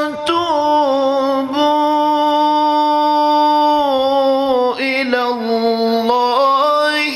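A male qari reciting the Quran in a slow, melodic chanting style, holding long drawn-out notes that slide down in pitch, with quicker ornamented turns of the voice in the second half.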